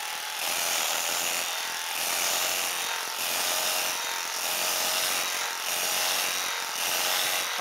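Electric carving knife running, its reciprocating serrated blades sawing through roasted chicken thighs. A steady motor buzz sits under a scraping cutting noise that swells about once a second with each slicing stroke.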